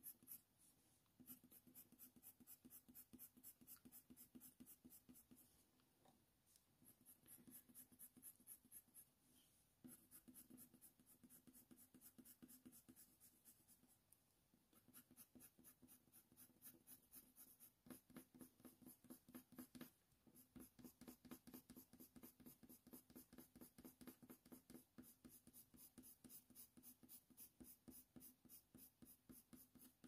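Faint, rapid scratching of a Faber-Castell Polychromos coloured pencil (Cold Grey I) shading with light pressure on hot-press watercolour paper, in quick back-and-forth strokes broken by short pauses every few seconds.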